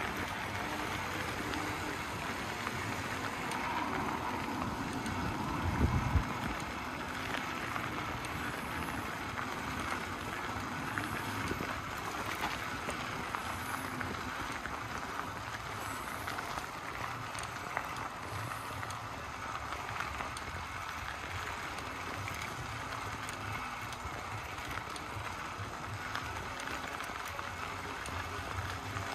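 A noisy bicycle rolling along a gravel path, its tyres crunching steadily with a fine crackle. About six seconds in there is one loud low thump.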